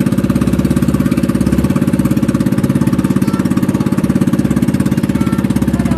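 Engine of a motorized wooden outrigger boat running steadily under way, a loud, rapid, even chugging.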